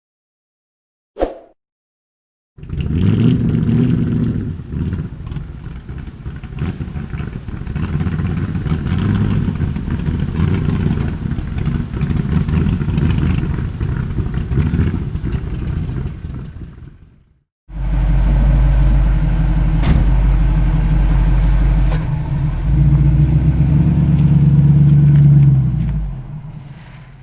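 Antique car engine sounds in two takes: a short click, then an engine coming in abruptly and running unevenly for about fourteen seconds; after a brief gap a second, louder run whose pitch rises near the end before it fades away.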